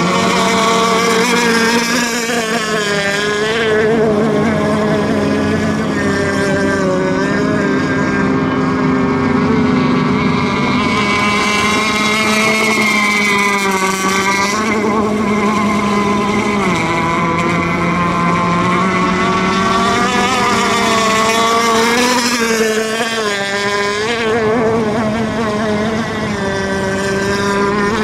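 Engines of several racing radio-controlled model boats running at high revs together, their overlapping pitches wavering up and down as the boats speed along and turn.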